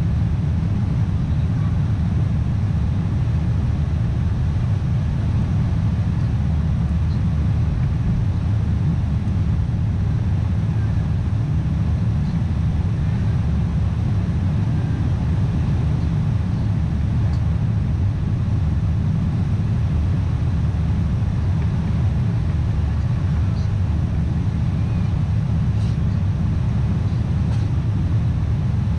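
Boeing 747 cabin noise during the climb after takeoff: a steady low rumble of the engines and rushing air, heard from inside the cabin.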